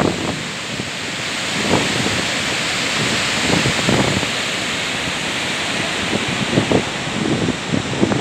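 Gokak Falls in full flood, a wide waterfall of muddy water pouring over a rock ledge with a steady rushing noise. Gusts of wind buffet the microphone now and then, adding brief low rumbles.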